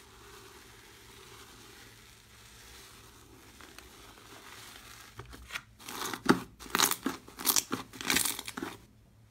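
Purple foamy slime in a plastic bowl making a faint, steady crackle as it is stirred, then from about five seconds in a run of about eight loud, sharp crackles and pops as a hand presses into it.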